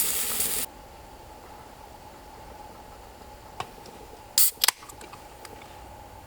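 A loud hiss that cuts off suddenly under a second in, then a quiet background with a faint click and, about four and a half seconds in, two loud sharp clicks close together.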